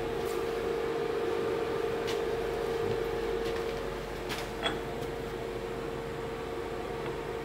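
Steady machine hum under a few light metal clicks as a thread ring gauge is turned onto a freshly cut taper pipe thread, with one brief ringing tink about four and a half seconds in.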